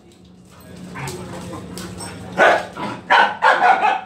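Dogs barking at each other: one bark about two and a half seconds in, then a quick run of barks near the end.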